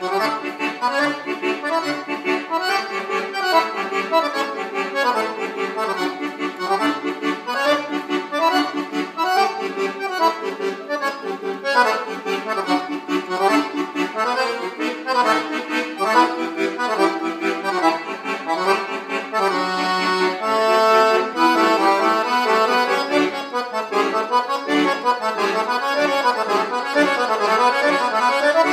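Piano accordion played solo: quick runs of notes with chords, and a briefly held chord about twenty seconds in before the fast passages resume.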